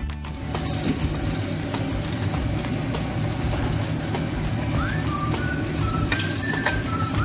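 Water heating in an aluminium pot on a hob, with a steady hiss and fine crackle; a spoon stirs it near the end. A high whistled tune of short notes begins about five seconds in.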